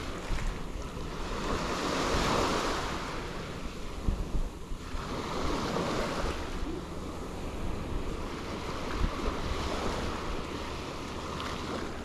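Small Gulf of Mexico waves breaking and washing up the beach in swells, one about two seconds in and another around five seconds, with wind rumbling on the microphone.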